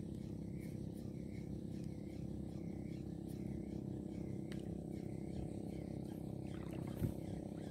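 Shimano Sedona 1000 spinning reel cranked on a steady lure retrieve, a faint whir repeating about twice a second with each turn of the handle, over a steady low rumble. A single short knock about seven seconds in.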